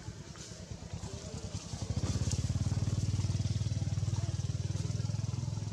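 A small engine running, a steady low pulsing that grows louder about two seconds in and holds.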